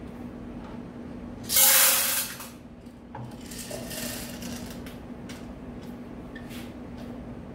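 Loose pharmaceutical tablets rattling on a metal counting tray: one loud rush of tablets about a second and a half in, a quieter rush around the middle as more are tipped out of a bottle, and scattered light clicks as they are spread by hand.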